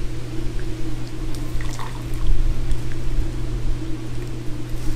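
Pot of hot salt water bubbling and sloshing as an octopus is dunked in and lifted back out, water splashing and dripping, with a few small ticks. A steady low hum runs underneath.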